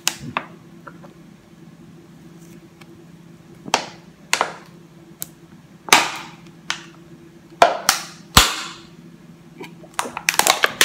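Thin plastic water bottle crackling and popping as it is drunk from and caves in under suction: a string of sharp cracks, a few close together, loudest a little past the middle.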